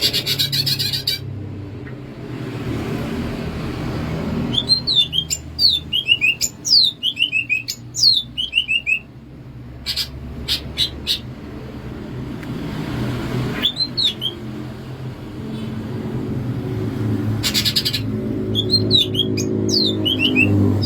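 Cucak ijo (green leafbird) singing: quick series of sharp, downward-sliding whistled notes, broken by a short harsh rattling burst right at the start and another about 17 seconds in.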